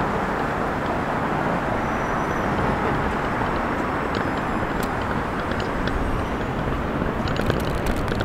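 St. Louis Car Company R42 subway train approaching on an elevated steel track, a steady rumble of wheels on rail. Near the end a quick run of clicks comes in as the train draws close.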